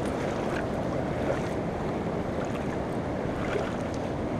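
Steady rushing of a fast-flowing, flood-swollen river, with a few faint clicks over it.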